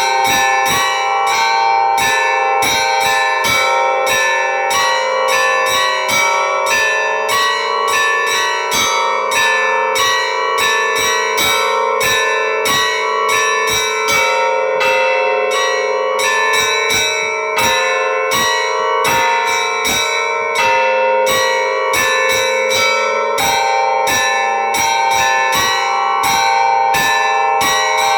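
Church bells ringing a continuous peal: smaller bells struck rapidly, several strikes a second, over the long, steady ringing of larger bells.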